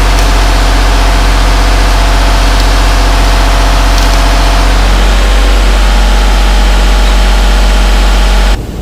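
Engine running steadily with a loud low hum. Its low tones change about five seconds in, and it cuts off abruptly near the end.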